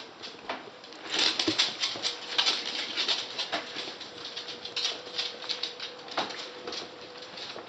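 West Highland white terriers' claws clicking and scrabbling on a hardwood floor as puppies and adult dogs play, a quick irregular patter that is busiest from about a second in.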